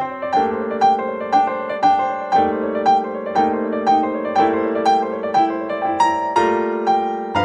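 Calm background piano music: a repeated note struck about twice a second over sustained chords that change every couple of seconds.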